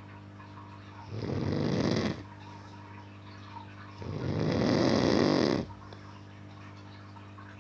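A man snoring in deep sleep: two long, rasping snores about three seconds apart, each lasting a second or more, with quiet breathing gaps between. A low steady hum runs underneath.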